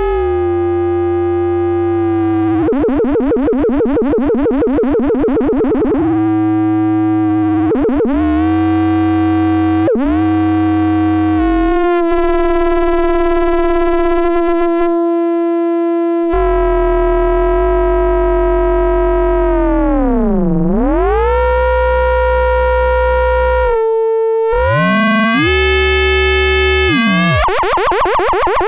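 Modular synthesizer note played through the CubuSynth Dual CS-20 resonant multimode filter, an MS-20-style VCF. The note holds steady while the filter sweeps its tone, with a fast warbling modulation for a few seconds early on and again near the end, and a deep downward sweep and back about twenty seconds in.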